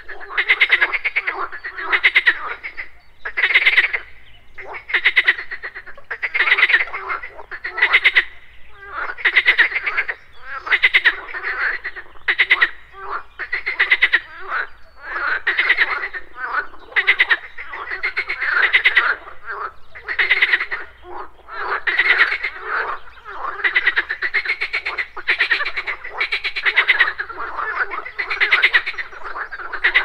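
A chorus of pond frogs croaking, the calls overlapping and repeating about once a second without a break.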